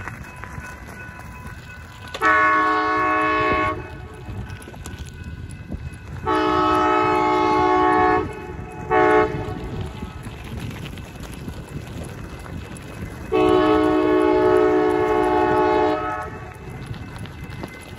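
Amtrak Blue Water locomotive's air horn sounding the grade-crossing signal: two long blasts, a short one, then a final long blast, each a chord of several tones. A low rumble runs underneath.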